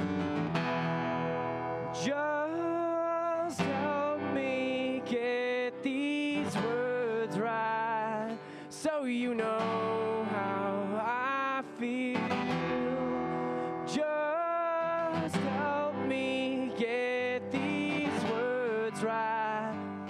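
Live music: a man sings while strumming an acoustic guitar. Guitar chords alone open the passage, and the voice comes in about two seconds in.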